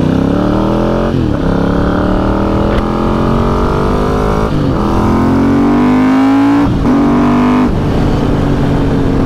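Ducati motorcycle engine accelerating hard through the gears. The pitch climbs and breaks off at each upshift, a few times, then holds steady toward the end.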